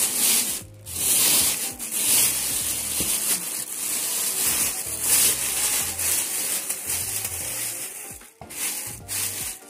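Clear plastic bag crinkling and rustling as it is pulled and handled around a heat press machine, with a brief pause about a second in and another near the end.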